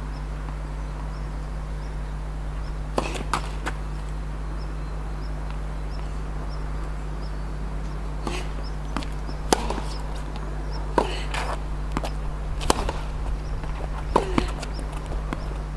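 Tennis rally on a hard court: the ball is struck by rackets and bounces on the court, making sharp pops every second or two from about eight seconds in, after a few softer knocks near the start. A steady low hum runs underneath.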